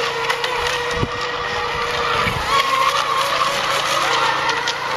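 Electric ECO Expert-class RC racing boats running flat out: a steady high whine from their motors and propellers that slides up and down in pitch as the boats turn and pass, over the hiss of spray. Two low rumbles come about a second in and again just after two seconds.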